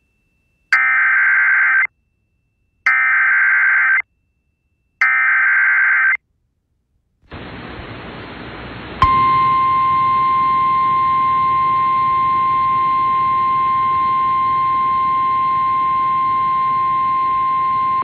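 NOAA Weather Radio Emergency Alert System alert opening: three short bursts of buzzy SAME header data, each about a second long with gaps of silence between. Radio static hiss comes in after them, then about two seconds later the steady high-pitched warning alarm tone starts and holds over the hiss, announcing a tornado warning.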